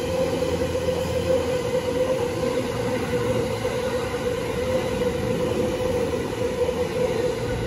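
Train running: a steady rumble with a constant mid-pitched hum.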